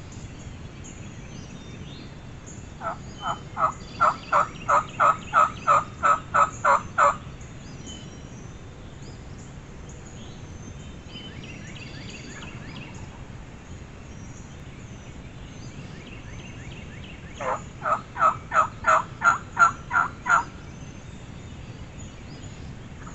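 Turkey calling: two runs of a dozen or so evenly spaced notes, about three a second, the first about three seconds in and the second later on.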